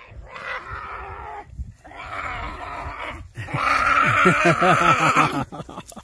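A man's wordless yells and grunts, in three stretches, the last and loudest wavering up and down in pitch.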